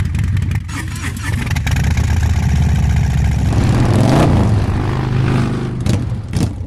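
Harley-Davidson V-twin motorcycle engine running with a pulsing beat, revved up and back down about four seconds in.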